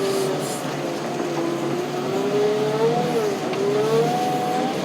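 Tractor running as it is maneuvered, its engine note wavering up and down in pitch.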